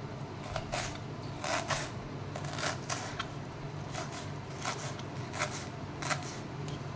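Kitchen knife slicing a red onion on a plastic cutting board: about a dozen short cuts at uneven intervals, over a steady low hum.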